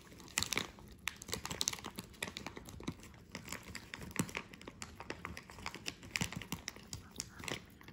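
Small dog chewing a hard treat: a run of irregular crunches and clicks as it bites through the pieces.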